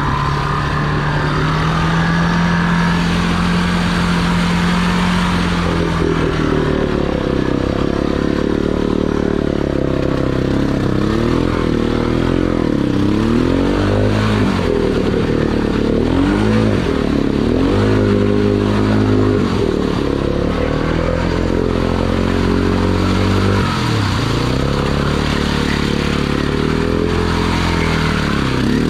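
Honda Big Red's air-cooled engine running hard under load while churning through deep mud: steady for the first few seconds, then revving up and down over and over as the throttle is worked and the tires spin. Mud spraying and scraping under the machine.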